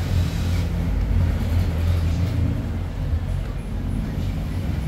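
Steady low rumble of an engine running, even and unchanging.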